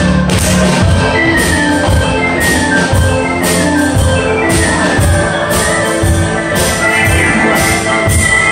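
Live contra dance tune played by a band of keyboard, fiddle and percussion, with a steady beat.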